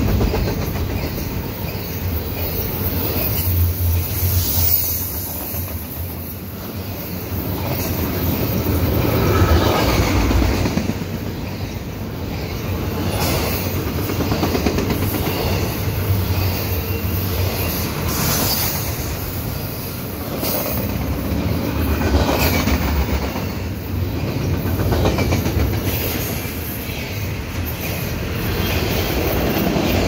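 A fast double-stack intermodal freight train's cars rolling past close by on a tight curve: wheels rattling over the rails with squealing from the wheels in the bend. The loudness swells and falls every few seconds as the cars go by.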